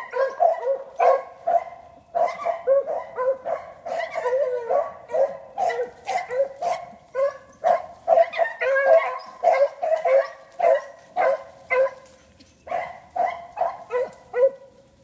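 Three beagles baying together in short, overlapping barks, several a second: hounds giving tongue as they run a scent trail. There is a brief lull, and the barking stops just before the end.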